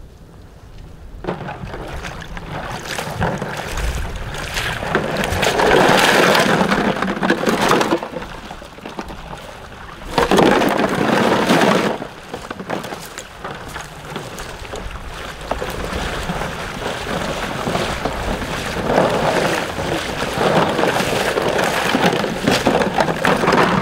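People in waders sloshing and splashing through shallow water as they wade, the splashing coming in several louder swells.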